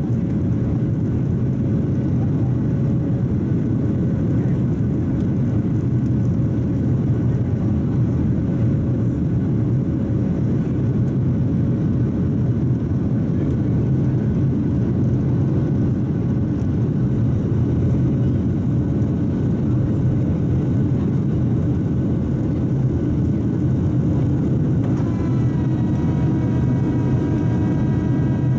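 Boeing 737-700 cabin noise during the climb after takeoff, heard inside the cabin: the steady low rush of its CFM56-7B jet engines and the airflow. Near the end a steady whine with several pitches joins in.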